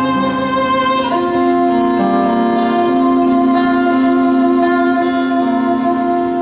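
Violin and guitar playing together in a live duet, long sustained notes shifting in pitch every second or two over a steady low note.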